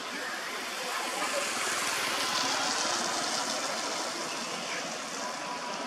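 Motorbike running past on the road, its noise swelling about two seconds in and then easing. Faint voices are heard underneath.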